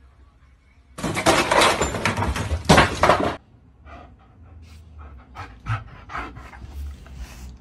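A loud rushing noise starts abruptly, lasts a little over two seconds and cuts off. Then a husky-type dog pants in short, irregular huffs.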